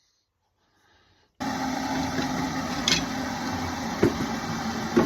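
Near silence, then about a second and a half in a handheld gas torch comes on and burns with a steady hiss, with a few light knocks over it.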